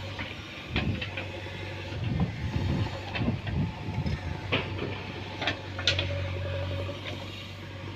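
JCB backhoe loader's diesel engine running steadily, working harder for a couple of seconds, with several sharp knocks over it.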